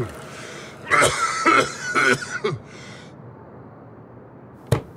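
A man's smoker's cough: about four harsh, throaty coughs in a quick fit, followed by a single sharp knock near the end.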